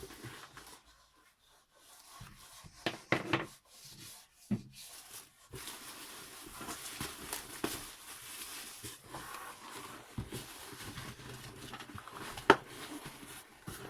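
Handling noise from unpacking: parts and packaging rustling and knocking, with a few short clicks early on, a steady rustle through the second half and one sharp click about twelve seconds in.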